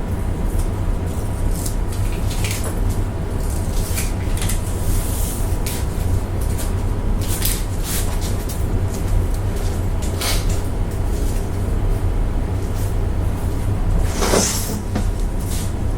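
Steady low machine hum in a workshop, with scattered clicks and light knocks over it and a short hiss about fourteen seconds in.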